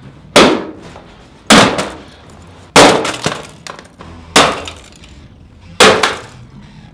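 A hammer smashing a Toshiba laptop lying on a carpeted floor: five hard blows roughly every second and a bit, each with a crack of breaking screen glass and plastic.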